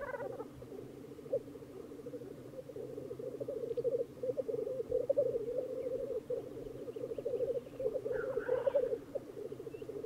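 Black grouse rookooing at the lek: a continuous bubbling, cooing song of courtship display, with a brief higher call about eight seconds in.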